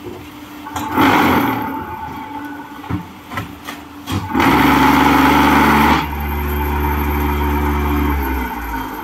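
Double-vibrator concrete block making machine working through a moulding cycle: a noisy rush about a second in and a few clanks, then the vibrators start with a loud steady hum about four seconds in, ease off a couple of seconds later and stop near the end.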